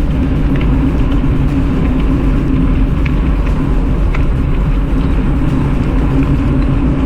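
Steady low rumble of an e-bike rolling along the trail, wind buffeting the microphone with tyre noise, with a few faint scattered ticks.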